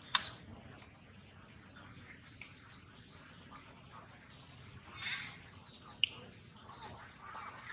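Birds chirping over a steady high insect drone, with a couple of sharp clicks, one just after the start and one about six seconds in.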